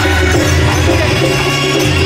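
Live street-band music: a reed pipe playing held notes over percussion, loud and continuous.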